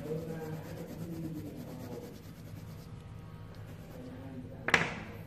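Quiet handling noise of a hand on a paper card on a cloth-covered table, with one short, sharp rustle or knock near the end.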